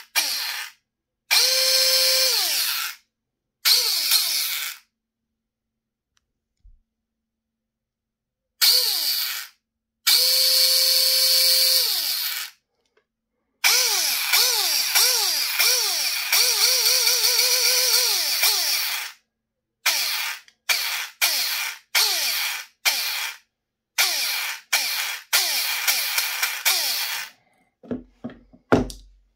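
Bare airsoft AEG V2 gearbox with helical gears, shimmed and sprung for an M160 spring, run by its motor in bursts as the trigger is pulled: the motor and gears whine, some bursts steady, others dipping in pitch again and again as each cycle compresses the spring. Several bursts of one to five seconds, then a quick run of short trigger pulls near the end. The smooth whine is what the uploader presents as a perfectly shimmed gearbox.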